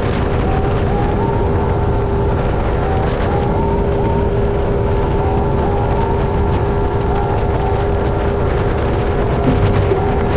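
Motorboat engine running steadily at speed on a river, with wind and water rush over it.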